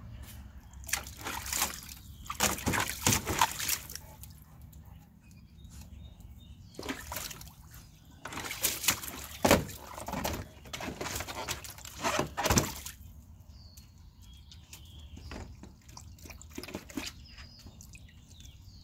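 Dogs splashing water in a small plastic kiddie pool, in two spells of sloshing a few seconds long with quieter stretches and a few short splashes between.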